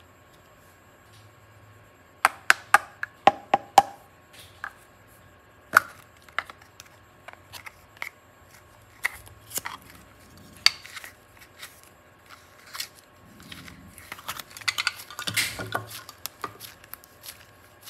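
Sharp clicks and taps of small objects being handled on a tabletop during slime play. A quick run of them comes about two seconds in, single taps are scattered after that, and a denser crackling patch comes near the end.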